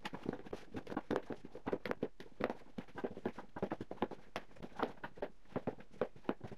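Hands kneading a soft yeast dough in a plastic bowl: quick, irregular pats and squishes, several a second.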